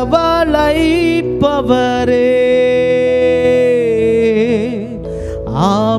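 Tamil Christian worship song: a solo voice sings the end of a line, holding one long note for about two and a half seconds, over steady sustained accompaniment chords.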